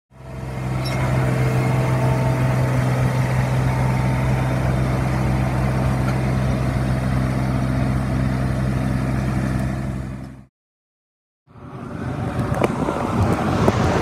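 Engine of a riding triplex reel mower running steadily: an even low hum with no change in speed, which cuts off abruptly after about ten seconds. After a second of silence, a rushing noise begins near the end.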